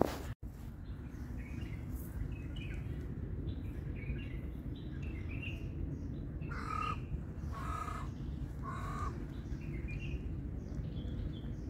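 A bird, crow-like, cawing three times about a second apart near the middle, over scattered chirps of small birds.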